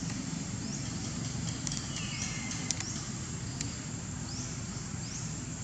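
Outdoor ambience: a steady low rumble under short, high, rising chirps that repeat in runs a little faster than once a second, with one longer call about two seconds in that falls in pitch, and a few faint clicks.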